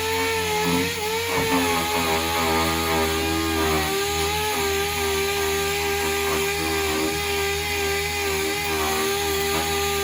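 A power tool running steadily with a high whine, its pitch wavering slightly.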